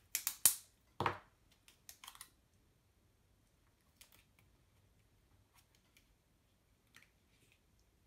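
Sticky tape pulled off the roll and torn off in a few quick, sharp rips in the first second or two, followed by faint clicks and rustles as the tape is pressed onto card.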